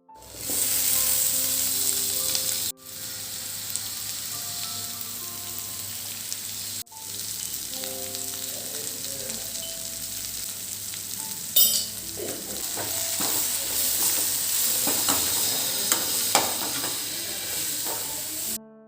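Food frying in a pan with a steady sizzle, cut off briefly twice, with scattered clicks of stirring in the second half. Soft piano music plays underneath.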